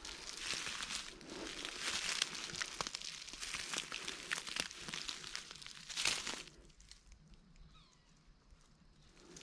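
Rustling and crunching of dry leaves and brush as a person creeps through undergrowth. The rustling stops about six and a half seconds in.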